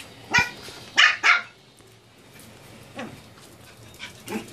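Pomeranian puppy barking in play: three barks close together in the first second and a half, then a fainter single bark about three seconds in and another near the end.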